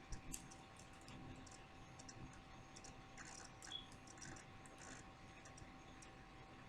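Faint, scattered light clicks and taps, as from small objects being handled, over a faint steady hum.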